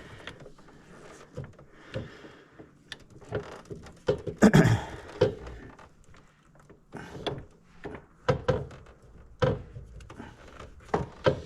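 Scattered knocks and clunks of parts and tools being handled while working on a U-joint, with a louder clatter about four and a half seconds in.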